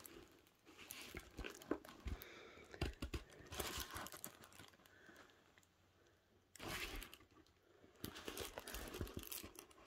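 Faint crinkling and rustling of a diamond painting canvas and its thin plastic cover film as it is handled, in several short irregular bouts.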